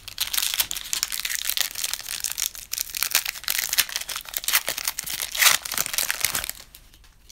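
Foil wrapper of a Panini Excalibur basketball card pack being torn open and crinkled by hand, a dense run of crackling and tearing for several seconds that stops shortly before the end.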